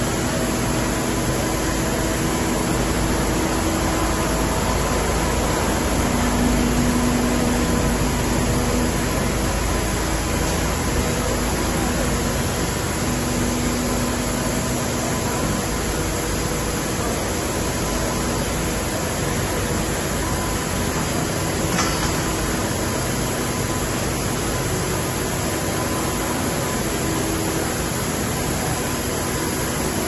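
Steady, loud hiss and hum of production machinery and air handling on a tobacco factory floor, an even rushing noise with a low rumble and faint steady machine tones underneath. A single faint click about two-thirds of the way through.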